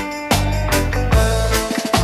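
Background reggae music, an instrumental stretch with drum kit, bass and sustained keyboard or guitar notes.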